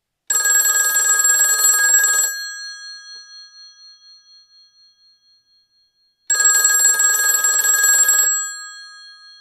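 Telephone bell ringing twice for an incoming call. Each ring lasts about two seconds and then rings out, with about four seconds between the rings.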